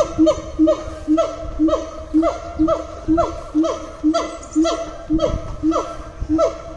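Gibbons calling: loud, pitched hoots repeated about twice a second, each a short steady low note paired with a higher call that swoops down in pitch.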